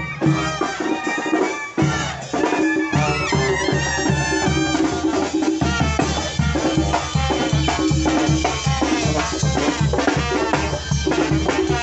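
Marching brass band playing a lively dance tune: trumpets and a sousaphone over conga, snare and bass drum.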